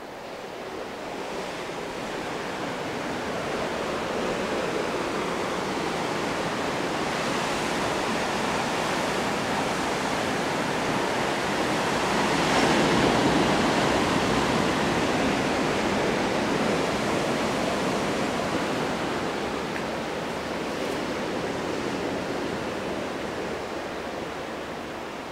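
Ocean surf washing on the shore: a steady rushing that swells slowly to a peak about halfway through and then eases off.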